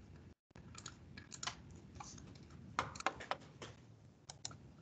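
Faint computer keyboard typing: a scatter of irregular key taps and clicks, with the audio cutting out completely for a moment about half a second in.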